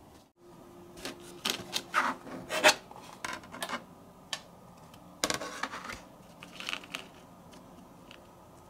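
Hands handling flat 3D-printed PLA lithophane panels on an LED light pad: a series of short rubs, scrapes and light clicks of plastic on plastic, in two bunches separated by a short pause and thinning out near the end.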